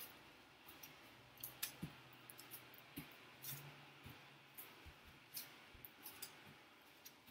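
Faint, irregular light taps and scuffs of hands and forearms on an exercise mat during plank up-downs with shoulder taps.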